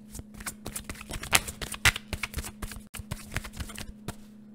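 A deck of tarot cards being shuffled by hand: a quick, uneven run of sharp card snaps that stops near the end.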